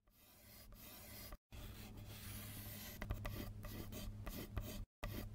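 Calligraphy pen scratching across paper in long strokes, broken twice by brief pauses, with small ticks of the nib in the middle stretch.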